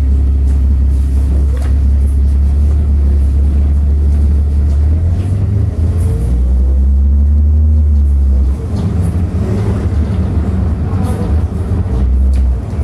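City bus in motion, heard from inside: a loud, steady low engine-and-road drone. About halfway through, the engine note rises and then falls, and the drone eases off a little soon after.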